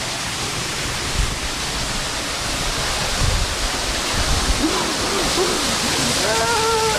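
Steady rush of water falling at a waterfall. Near the end a person's voice holds one long note over it.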